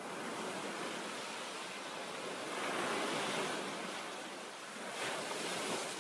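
Rushing noise of surf washing in, swelling about three seconds in and again near the end.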